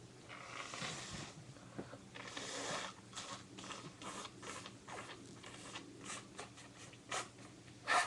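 A person blowing a runny nose into a tissue, two breathy blows in the first three seconds, then the tissue rustling and crinkling in quick crackles, with one short, louder blast near the end.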